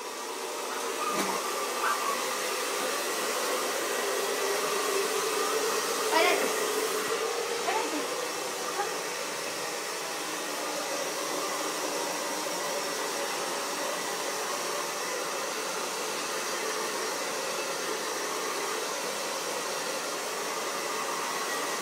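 Hair dryer running steadily, blowing on a dog to dry its coat. A couple of short, faint rising sounds break over it about six to eight seconds in.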